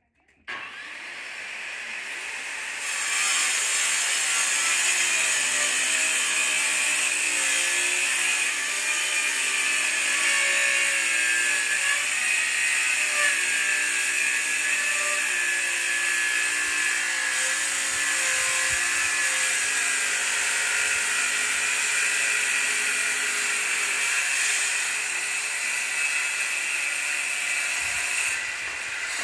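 A motor-driven machine or power tool running steadily, spinning up over the first few seconds and dropping away near the end. Its pitch wavers up and down as it works.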